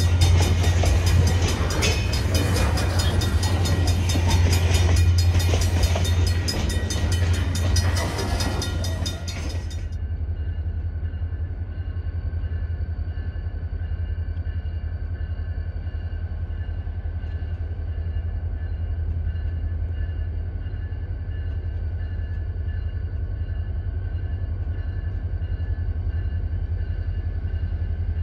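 Wood-chip hopper cars of a freight train rolling past at a crossing, steel wheels clicking and clattering over the rails with a heavy low rumble. About ten seconds in it cuts sharply to a quieter, steady low rumble with a faint steady whine over it, from diesel locomotives standing in a rail yard.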